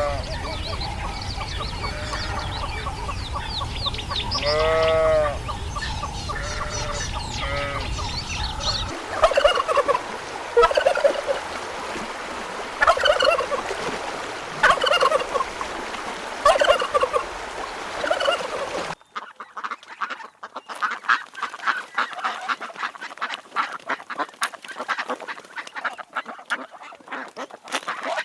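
Domestic poultry calling. First come a few long arching calls over a low rumble, then a run of honking calls about once a second, and after a cut, many quick clicks and short calls.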